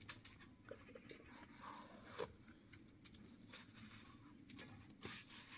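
Faint scrapes and taps of a trowel scooping cement mortar from a metal bucket and working it onto concrete blocks, a few short strokes with one sharper scrape a little past two seconds in.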